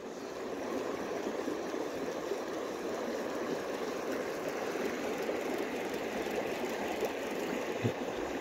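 Baitcasting reel being cranked steadily to retrieve a lure: a continuous, even whirring rush.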